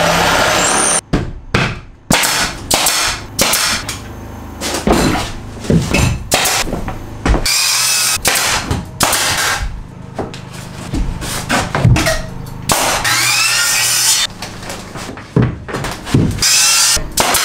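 Pneumatic brad nailer firing in quick shots as wall boards are nailed up, mixed with knocks of the boards being handled. The sound comes in short choppy pieces with some longer noisy stretches of about a second.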